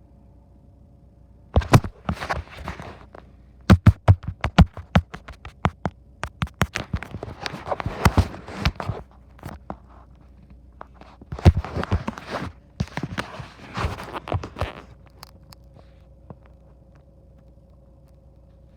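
Irregular knocks, clicks and scraping in clusters of rapid taps, stopping about three-quarters of the way through, over a faint steady hum. This is not the siren itself: no rising or falling siren tone.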